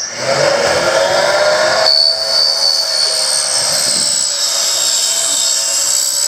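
A machine running loudly with a steady hiss and high whine, its pitch climbing over the first two seconds, then holding.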